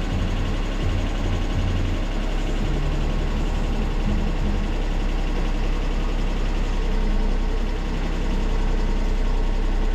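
Toyota Duet engine idling under electrical load, with the headlights on. The idle speed wavers for the first few seconds and then evens out. The idle does not rise with the load as it should, which the owner puts down to a still-learning idle air control valve.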